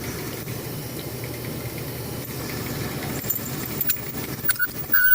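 Front-load clothes dryer running with a steady drum rumble while a squeak and noise that worsens as it warms are being traced. Near the end two short high-pitched squeals sound.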